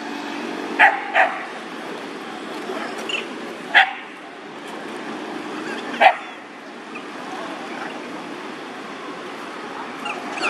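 A dog barking in short single barks, four in all: two close together about a second in, one near four seconds, and the loudest about six seconds in. Steady background noise runs underneath.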